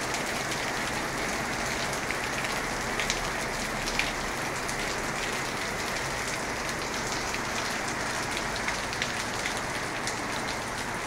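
Steady rain falling, with single drops ticking sharply now and then.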